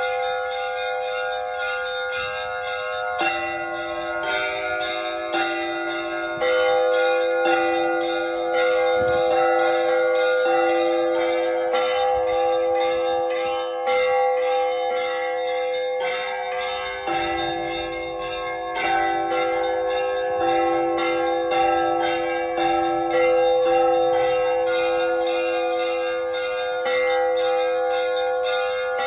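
Russian Orthodox church bells rung in a zvon: small bells struck in quick strokes over the sustained ringing of larger bells. A lower-pitched bell joins about three seconds in.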